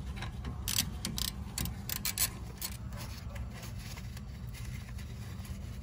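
Irregular metallic clicks and ticks from hand tools working on a car's rear suspension, busiest in the first three seconds and sparser after, over a steady low hum.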